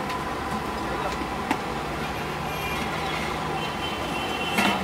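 Steady busy street-stall background noise with faint voices, a sharp click about a second and a half in, and a louder clatter near the end.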